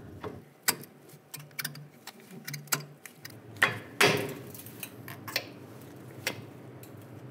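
Scattered small metallic clicks and knocks from gloved hands handling the rusty rear brake caliper and parking brake cable. The loudest knock comes about four seconds in.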